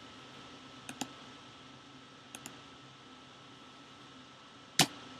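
Computer mouse double-clicks, two quick pairs about a second apart, then one louder single click near the end, over a faint steady electrical hum.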